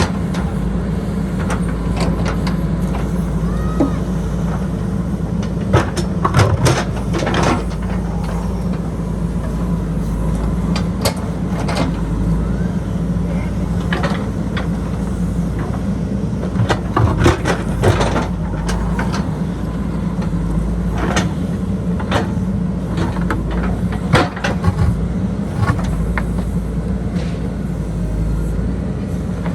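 JCB backhoe loader's diesel engine running steadily under load, with scattered clanks and knocks from the bucket and arm working the ground, heaviest in a few clusters through the middle.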